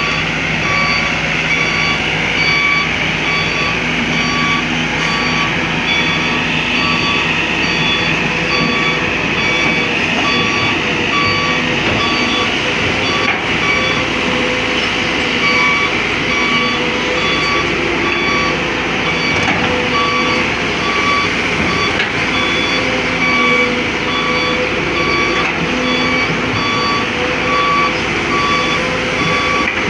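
Kobelco excavator's warning alarm beeping at an even, steady pace over its diesel engine running.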